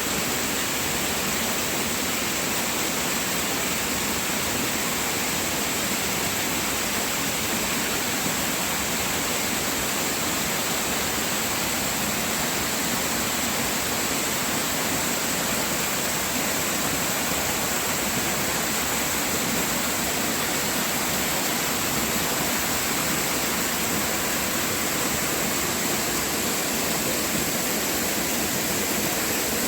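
Waterfall: water falling and rushing in a steady, even noise with no breaks.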